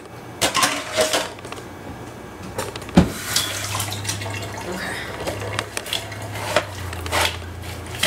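Dishes and kitchen utensils clattering at a kitchen sink as a mixing spoon is fetched, with a sharp knock about three seconds in. A low steady hum runs underneath from about halfway.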